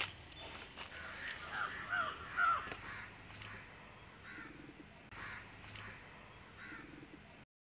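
Crows cawing several times, mostly in the first few seconds, faint behind outdoor background noise.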